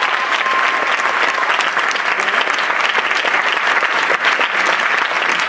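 Audience applauding: steady, dense clapping at the close of a stage musical number.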